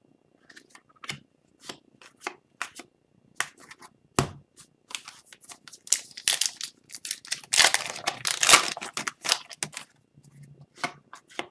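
Hockey trading cards being handled, with scattered light flicks and clicks. About six seconds in comes a loud burst of crinkling and tearing as a foil card pack is opened, lasting a few seconds, then cards are slid apart with a few more light clicks.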